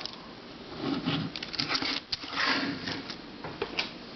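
Handling noise as puzzles are picked up and moved on a shelf: soft irregular rustling with a few light clicks and taps.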